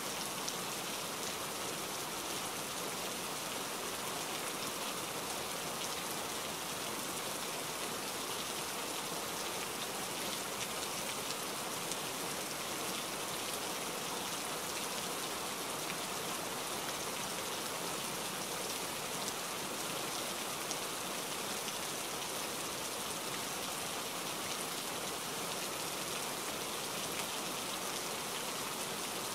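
Steady rain: an even hiss of many fine drops, unchanging throughout.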